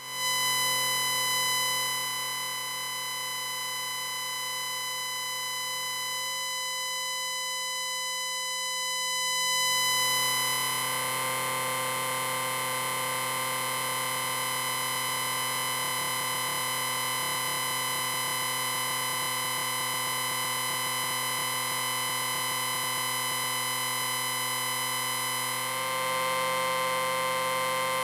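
Electric bell ringing continuously in one long unbroken ring, starting suddenly and getting a little louder about ten seconds in and again near the end.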